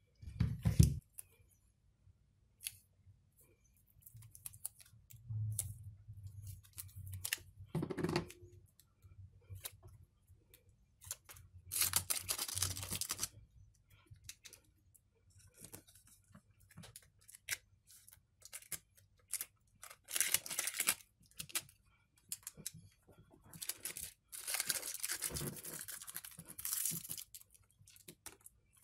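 Intermittent handling sounds: strips of double-sided tape being cut and peeled, and a new pouch battery being lifted, positioned and pressed into an opened tablet's frame. A dull thump comes right at the start, and there are scattered clicks and scrapes, with two longer scratchy stretches of a second or two, one about halfway through and one near the end.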